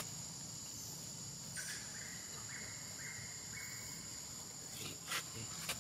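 Forest ambience: insects keep up a steady high drone. About one and a half seconds in, a short chirping call is repeated four times. Near the end come two sharp clicks.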